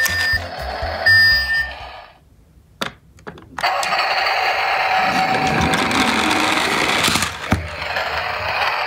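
A beeping, bell-like jingle plays briefly, then stops. After a short pause, an orange plastic toy pickup truck is pushed along and rolls across a hard floor with a steady whirring rattle from its wheels and gearing.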